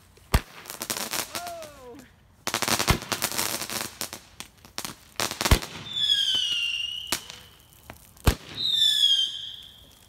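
Roman candle firing: sharp pops a few seconds apart, bursts of hissing crackle, and two high whistles that dip slightly in pitch in the second half.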